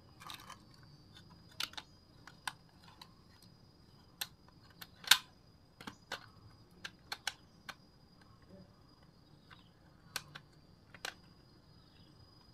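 Irregular sharp clicks and taps of a hard-plastic RC bulldozer being handled, with one louder knock about five seconds in. A faint steady high tone runs underneath.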